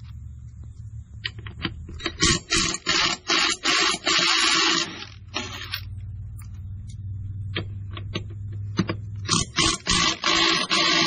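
Power impact wrench rattling in short repeated bursts, loosening the lug nuts on the tractor's front wheel, over a steady low hum.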